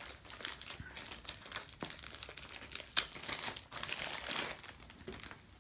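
Clear plastic wrapping crinkling and crackling as hands peel it off a small cardboard box, with a sharper crackle about three seconds in.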